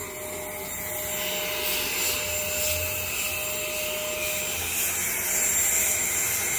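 Vacuum cleaner running steadily, its hose nozzle sucking dust off the mesh dust filter on top of a PC tower case; the noise grows a little louder about a second in.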